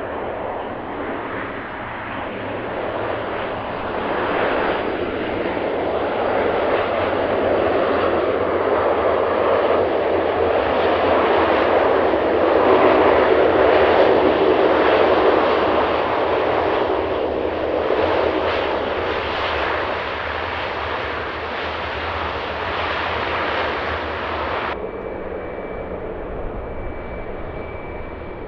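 Airliner's engines passing, swelling to a loud peak about halfway through and then easing off. Near the end the sound changes abruptly to a duller, quieter rumble.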